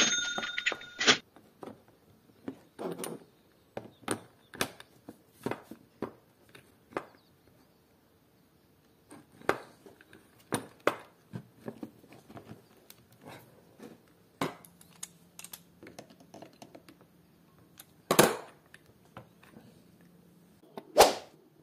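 Scattered clicks and knocks of small drill parts being handled and fitted as a low-cost drill is worked on, with a brief ringing sound at the start and a couple of louder knocks near the end.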